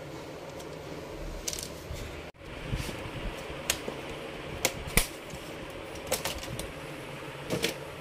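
Scattered sharp clicks and knocks of hard plastic and metal as a laptop's opened chassis and its parts are handled during disassembly, about seven in all, over a steady hiss. The sound cuts out briefly a little over two seconds in.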